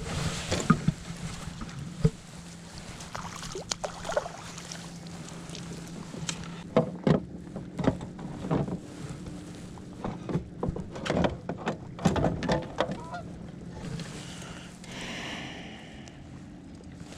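Geese honking: a string of short, irregular honks, thickest in the middle stretch, over a steady low hum.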